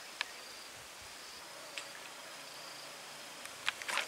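Faint insect buzzing, thin and high and coming and going, over a soft outdoor hiss, with a few light ticks. Near the end there is a brief splashing as water sprays up around the fishing float.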